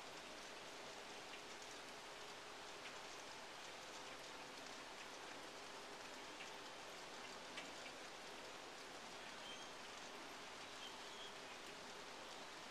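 A huge flock of starlings chattering, heard as a faint, even hiss of countless overlapping calls and clicks, with a few clearer chirps a little after the middle.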